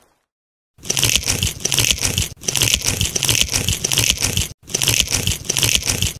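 Loud, dense crackling and crunching noise that starts just under a second in and comes in three stretches with brief breaks between them.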